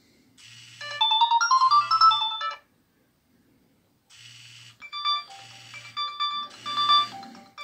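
Nokia 3650 ringtones previewing from the phone's loudspeaker on its loudest Outdoor profile, at huge volume. Two short electronic melodies play: the first from about half a second in, lasting about two seconds; the second starts about four seconds in, after a brief gap. A low buzz pulses beneath each melody.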